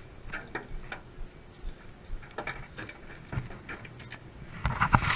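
Two freshly landed scup flopping and slapping on a boat's deck: scattered knocks and clicks, with a louder run of thumps near the end.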